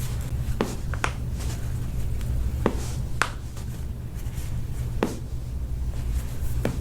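Toe joints popping as they are worked by hand: several short, sharp cracks spread irregularly over a few seconds.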